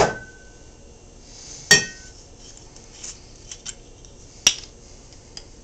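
Glass bottles clinking and knocking on the countertop as they are put down and picked up: a ringing clink at the start, a louder ringing knock under two seconds in, then a few light taps and a sharp tap near the end.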